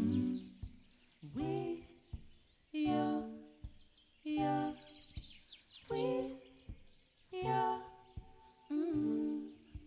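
A female vocalist singing short phrases into a microphone, seven in a row about one and a half seconds apart, each about a second long with a quiet pause after it.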